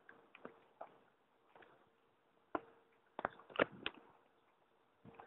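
Gloved punches landing in boxing sparring: scattered sharp smacks, then a quick flurry of four about three seconds in, the loudest in the middle of the flurry.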